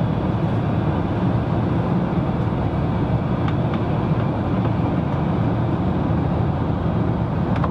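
Steady low rush of airliner cabin noise, the drone of engines and airflow heard from inside the cabin, with a few faint ticks in the middle.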